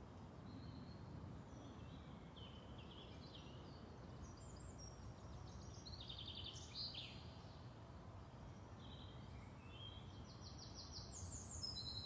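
Faint birds chirping and singing on and off over a low, steady outdoor background hiss, with a few clearer chirps near the end.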